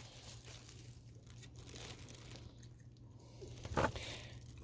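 Quiet room with a steady low hum and faint rustling. There is one short, soft thump about three quarters of the way through.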